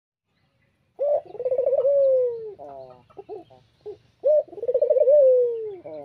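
Barbary dove (domestic collared dove, burung puter) cooing twice, starting about a second in. Each call is a short note, then a quick rolling stutter, then a long falling coo, with softer short notes between the two calls.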